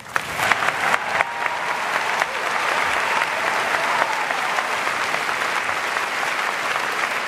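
A large audience applauding. It starts with a few scattered claps, swells within about a second into dense applause, and then holds steady.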